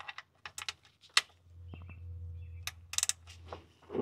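Irregular sharp metallic clicks of a long socket wrench working on a car's oil drain plug as it is loosened. A low hum rises and fades in the middle.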